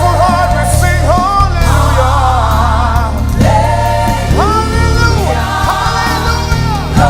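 Gospel worship music: a choir singing sustained, bending lines over a band with a steady bass.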